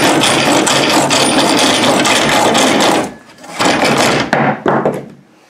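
A handsaw cut down from a vintage one-man bucking saw, its coarse crosscut teeth rasping rapidly through a piece of wood. The sawing runs continuously, breaks off about three seconds in, and resumes with a few last strokes that stop shortly before the end.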